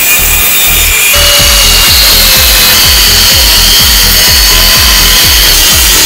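A power tool running steadily on metal, a loud hissing noise that grows stronger about a second in, over background music with a fast steady beat.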